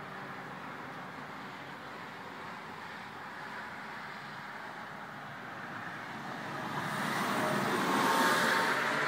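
A steady background hum, with a road vehicle passing outside that swells up over a couple of seconds near the end and then begins to fade.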